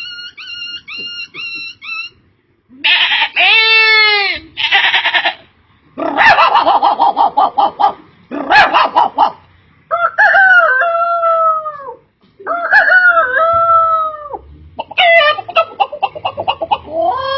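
A man imitating animal calls with his voice: about four quick, high chirps a second at first, then a run of loud calls that swoop up and down in pitch, some broken into rapid pulses, with short pauses between them.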